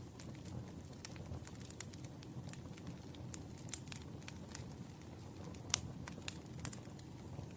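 Wood fire crackling: irregular sharp pops and snaps of burning logs over a low, steady rumble of flame, with one louder pop about three-quarters of the way through.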